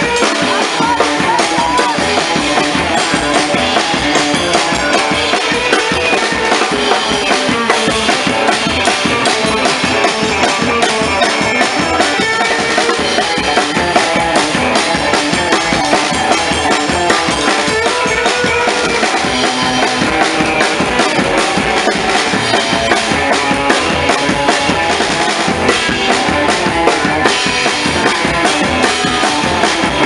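Live rock and roll band playing, with a drum kit keeping a steady driving beat and an upright double bass.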